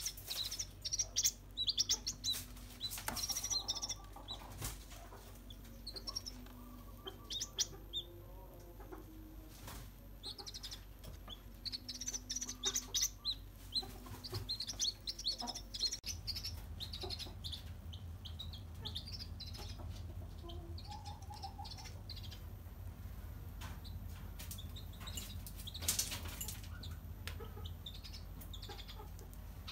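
Young white-breasted waterhen (ruak-ruak) chicks peeping: quick, high-pitched cheeps in clusters that thin out after about halfway, with scattered small knocks and rustles.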